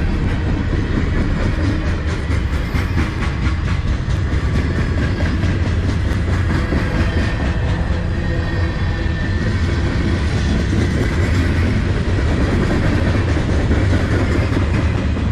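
Freight cars of a CN manifest train rolling past close by: a loud, steady rumble of steel wheels on the rails, with clickety-clack as the wheel sets cross rail joints, thickest a few seconds in.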